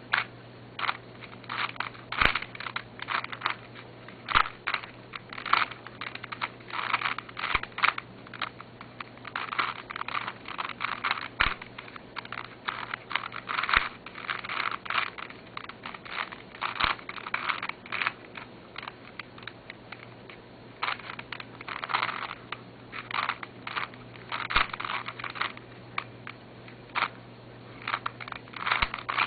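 An ungreased Rubik's cube being turned quickly by hand during a timed solve: irregular runs of plastic clicks and scraping as the layers turn, with short pauses between bursts of turns.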